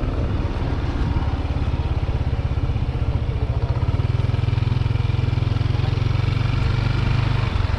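A small motor vehicle's engine running steadily with a fast low throb, getting louder about four seconds in.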